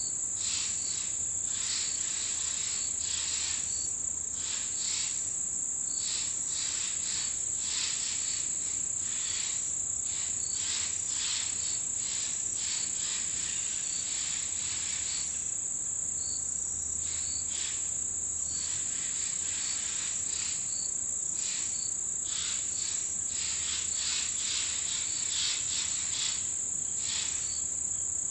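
Chorus of autumn insects. One continuous high-pitched trill runs throughout and is the loudest sound. Over it, other insects' pulsing calls come and go, along with short chirps repeating every second or two.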